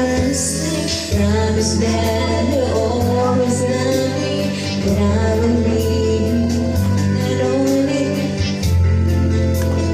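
Woman singing karaoke into a microphone, her amplified voice over a videoke backing track with held bass notes.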